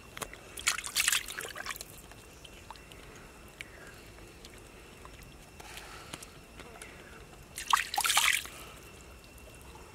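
Wet crackling and squelching as a cooked king crab's shell and meat are pulled apart by hand. It comes in short bursts, the loudest about a second in and near the end.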